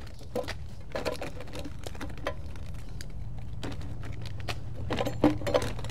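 Irregular light clicks and crackles over a low steady hum.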